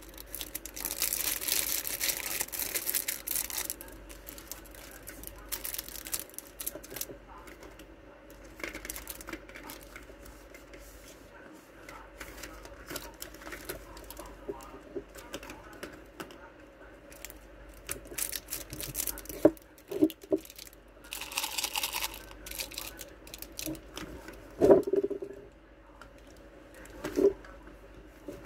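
Crinkling of plastic wrapping as a plastic tumbler is handled, in rustling bursts at the start and again past the middle, with a few light knocks of the cup in the second half.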